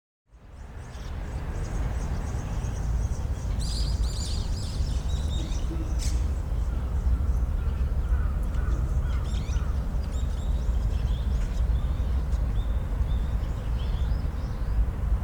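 Birds chirping in short high calls, a cluster about four seconds in and more scattered later, over a steady low rumble.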